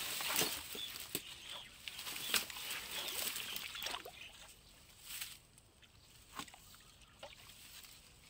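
Water sloshing and splashing as a long-handled dip net is swept through shallow canal water to scoop for fish, with scraping and rustling strokes. Busiest in the first half, then quieter with a few scattered knocks and rustles.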